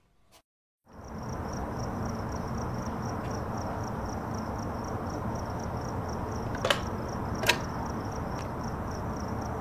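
Night ambience with crickets chirping in an even pulse, over a steady low background rumble; it fades in after a moment of silence. Two sharp clicks come close together about seven seconds in.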